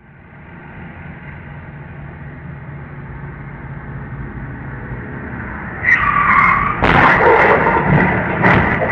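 Pickup truck engine running and growing steadily louder as it approaches, then a tyre squeal about six seconds in and a loud crash about a second later as it slams into a car, followed by a second crunch of impact.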